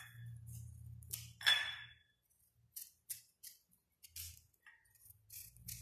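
A turnip being peeled by hand: a string of short, irregular scrapes and clicks, with one sharper, briefly ringing clink about a second and a half in.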